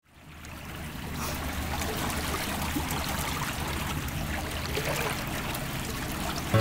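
Small waves lapping and trickling against a houseboat's hull, fading in over the first second.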